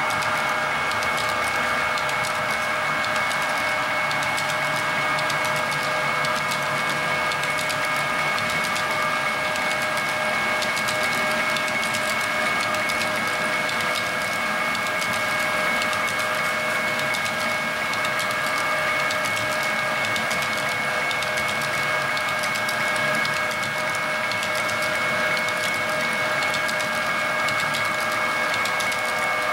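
HO-scale model coal hopper cars rolling past on the track: a steady clatter of small wheels with many fine clicks, over a steady high whine.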